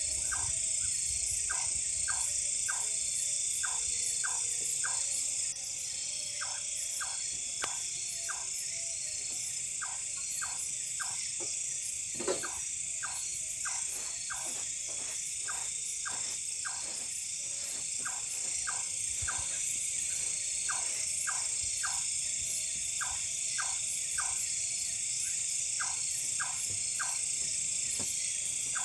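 Night animal chorus: short repeated calls, roughly two a second, over a steady high-pitched drone and hiss.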